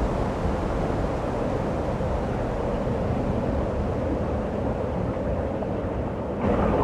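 Steady rushing wind of a snowstorm, with a low rumble underneath; it jumps suddenly louder near the end.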